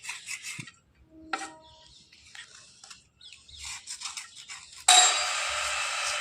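Slate pencils being handled: a few light clicks, a single ringing clink about a second in, then a loud steady scraping rasp from about five seconds in.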